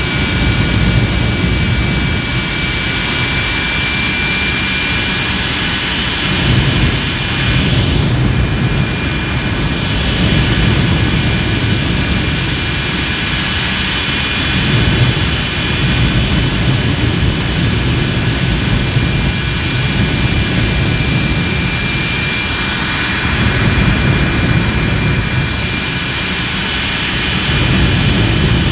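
Jet engine mounted on a jet truck, running steadily at high power. A steady high whine rides over a deep, rough rumble.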